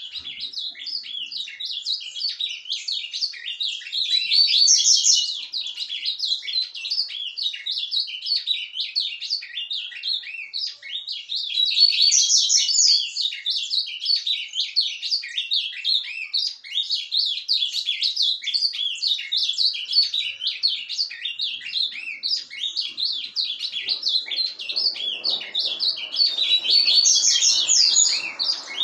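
Ultramarine grosbeak (azulão) singing a continuous, rapid, rambling warble of short high notes without pauses, louder in a few stretches. The keeper wonders whether this is surdina, the soft run-on subsong.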